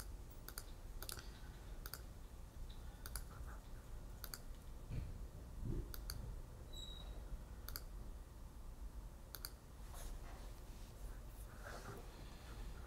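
Faint, irregular clicking of a computer mouse, about a dozen clicks with uneven gaps, some in quick pairs.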